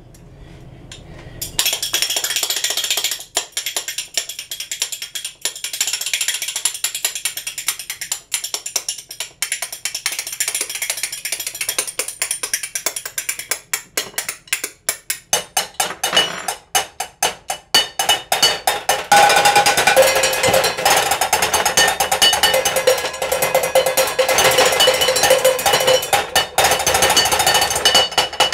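A pair of spoons clacking in a fast rhythm, played as a percussion instrument. After about two-thirds of the way through, it gives way to louder drumming with a stick on kitchen pans and surfaces, the metal pans ringing with pitched tones.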